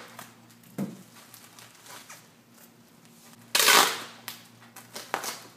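Packing tape pulled off a handheld tape-gun dispenser in one loud, short rip about three and a half seconds in. Around it are crinkling bubble wrap and a few light clicks from the dispenser.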